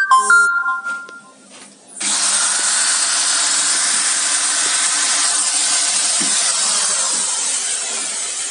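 Cordless drill boring into a greased stainless steel bracket: the bit grinds steadily through the metal, starting about two seconds in and running on loud and even.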